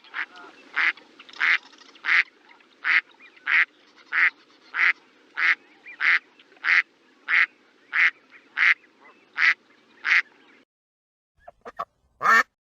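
A duck quacking in a steady run of about sixteen evenly spaced quacks, roughly one and a half a second. After a brief gap near the end come a few quicker, shorter quacks and one louder one.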